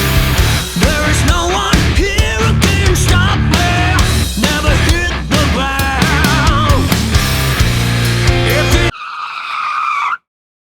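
Background rock music with a wavering lead line like singing, cutting off abruptly about nine seconds in; a short fainter tone follows, then dead silence.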